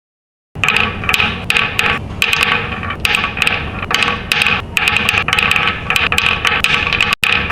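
Marbles rolling and clattering down a HABA wooden marble run, a continuous rattle with many sharp clicks as they knock against the track and each other, starting about half a second in.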